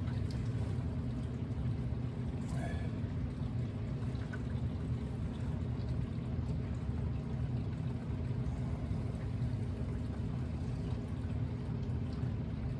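Water swirling and sloshing gently in a plastic gold pan as concentrates are panned, over a steady low hum.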